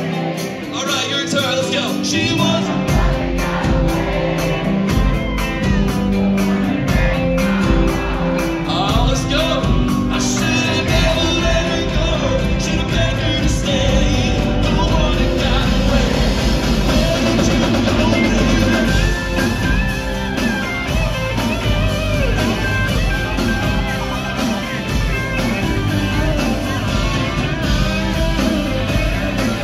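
Live country band playing, acoustic guitar up front, with bass and drums filling in about two seconds in.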